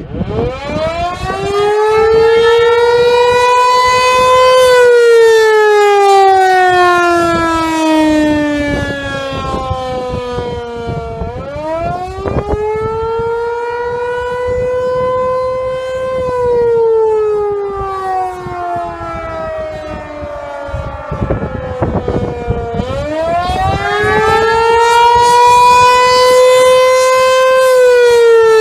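Outdoor warning siren sounding a wail for its routine monthly test. The pitch climbs over about four seconds and then slowly falls, three times over.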